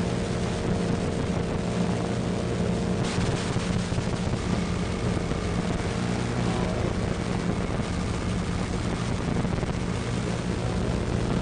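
A steady, dense low drone: several held hum tones under an even rumbling hiss, with no change in level.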